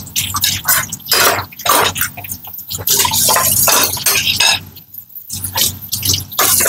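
Kitchen tap running and water splashing in irregular bursts as dishes are washed in the sink, over a low steady hum.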